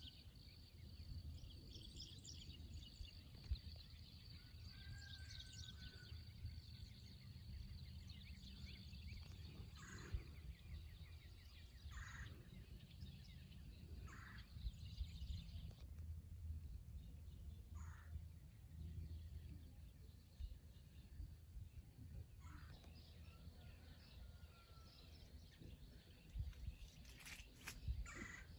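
Faint outdoor ambience with birds calling: short calls every few seconds and a few brief whistled notes, over a low steady rumble.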